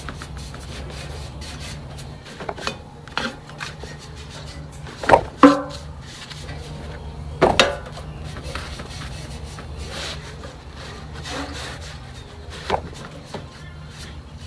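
A 1000-grit sanding pad rubbing over the dried enamel on a painted outboard fuel tank, scuffing it between coats. There are a few sharp knocks, loudest about five seconds in and again about seven and a half seconds in, over a steady low hum.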